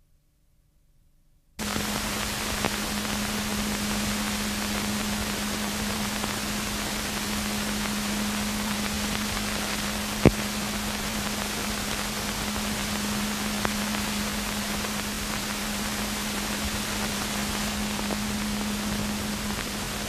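Old film soundtrack noise: a steady hiss with a low hum that starts suddenly about a second and a half in, with one sharp pop about halfway through and a few fainter clicks.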